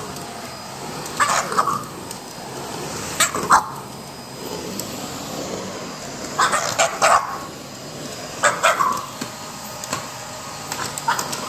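French Bulldog barking at a vacuum cleaner in strained, squeezed-out barks, in short clusters of two or three about every two seconds. A steady whir from the running vacuum cleaner lies underneath.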